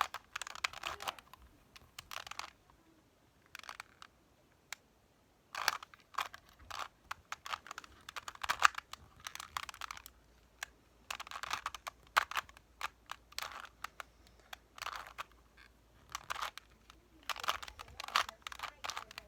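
Rubik's cube being twisted by hand: runs of quick plastic clicks and clacks as the layers turn, several runs in a row with short pauses between them.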